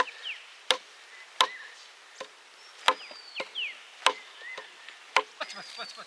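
A hand blade chopping at a wooden stick, a series of sharp chops roughly one a second, with birds chirping in the background.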